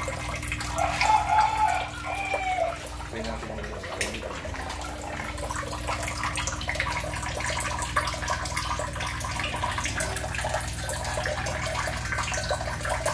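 Water running steadily into a shallow tiled fry tank, with a low steady hum underneath. A brief arching call or voice sounds in the background about a second in.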